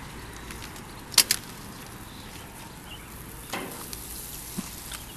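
Potatoes sizzling steadily on a hot grill, with a few sharp clicks, the loudest a quick double click about a second in.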